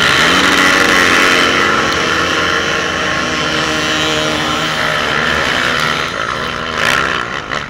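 A pack of motocross bikes revving hard and accelerating off the start line together, towing skiers on ropes, their engines rising in pitch as they pull away. There is a short louder burst near the end.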